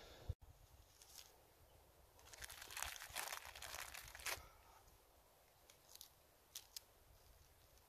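Faint crinkling of a thin plastic bag being handled, loudest for about two seconds starting about two seconds in, followed by a few soft clicks.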